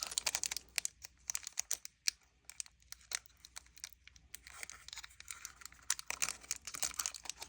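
Pokémon card booster pack's foil wrapper crinkling and tearing in a string of sharp crackles as it is worked open by hand, a tough pack to get into.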